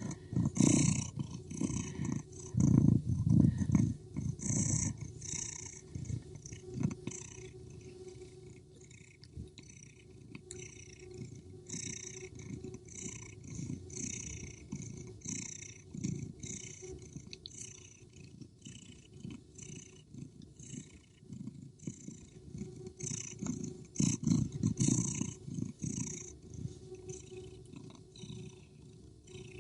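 Domestic cat purring close up: a steady, rhythmic rumble with breathy hiss on each breath, louder in the first few seconds and again a few seconds before the end.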